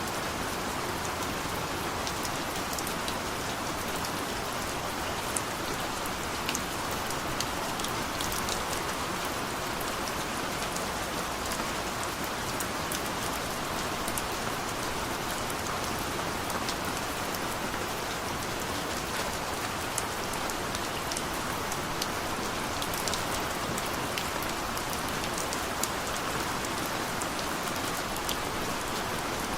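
Heavy rain falling steadily: a dense, even hiss scattered with many sharp individual drop hits.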